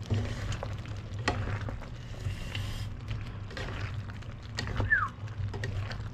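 Two wooden spatulas stirring a thick beef-and-potato stew in a pan: repeated scrapes and knocks against the pan, with the squelch of the sauce, over a steady low hum. A short squeak falling in pitch near the end.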